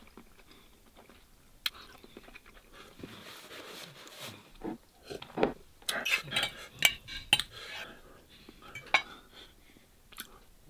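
A metal fork clinking and scraping against a dish of noodles, with a cluster of sharp clicks about halfway through and a few single clicks near the end.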